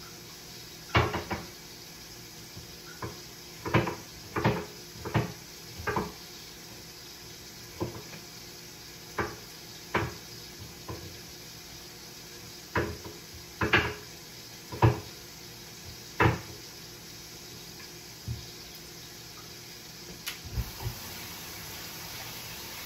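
Kitchen clatter: irregular sharp knocks and clinks of pots, dishes and utensils being handled, about fifteen separate strikes spread through, over a steady low hum.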